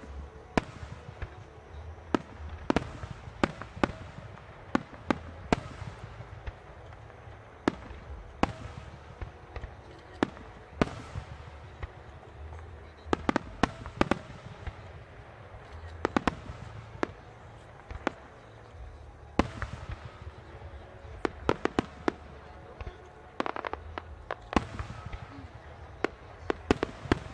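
Aerial firework shells bursting in a display: sharp bangs and crackles at irregular intervals, bunching into quick rapid-fire clusters several times, over a constant low booming haze.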